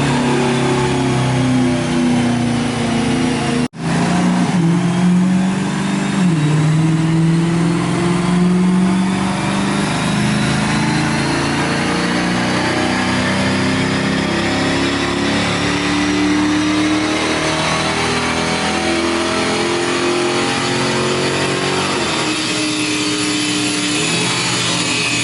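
Car engine run hard on a chassis dynamometer, its note holding under load while a whine climbs slowly as the rollers speed up. The sound drops out briefly about four seconds in.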